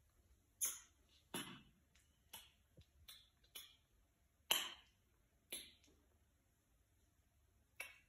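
Kissing: a string of short, soft smacks, about nine scattered over several seconds, the loudest about halfway through.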